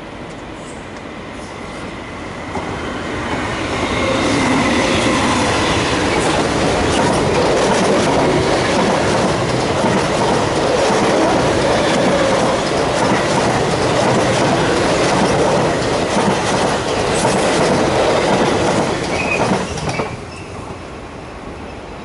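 East Rail Line electric multiple-unit train passing close by over the points, its wheels clattering across the crossover with a faint wheel squeal. The noise builds over the first few seconds, stays loud, and drops off suddenly about twenty seconds in as the last car clears.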